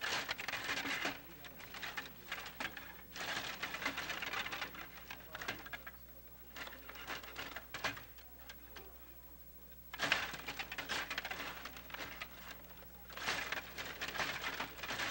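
Table hockey game in play: rapid clicking and clattering of the rods being pushed and twisted, the figures striking and the puck knocking about, in several bursts with a short lull just past the middle.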